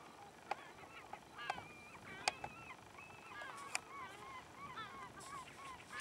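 A flock of waterbirds giving many short, overlapping honking calls, with a few sharp clicks, the loudest about two seconds in.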